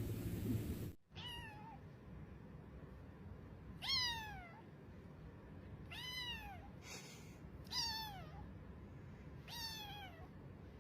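Kitten meowing: five short, high meows about two seconds apart, each falling in pitch.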